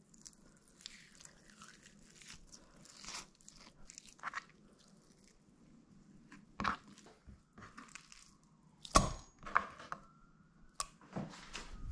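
Raw chicken skin being pulled and peeled off thighs by hand: soft, wet, sticky tearing sounds. In the last few seconds come several sharp knocks, and one of them leaves a faint metallic ring from a stainless steel bowl.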